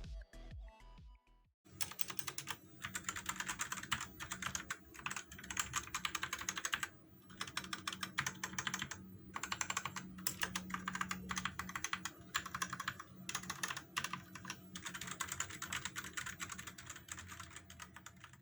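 Fast typing on a mechanical TKL keyboard with Outemu Red linear switches: a dense run of key clacks that starts about two seconds in, with a few short pauses.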